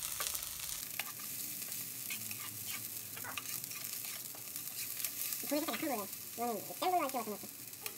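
Chopped green onions frying in a nonstick frying pan with a steady sizzle, stirred with a silicone spatula that scrapes and taps the pan now and then. A voice is heard briefly in the last few seconds.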